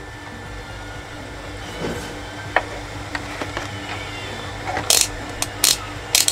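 Handling noises on an electronics repair bench: a few light clicks, then several short scratchy rustles near the end, over a steady low hum.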